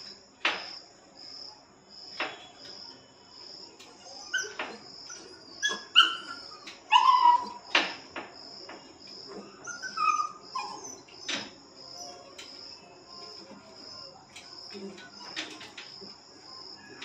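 Puppies whining and yelping in short, high, falling cries, loudest about six to seven seconds in, with scattered sharp clicks and knocks. Behind them an insect chirps steadily at about two pulses a second.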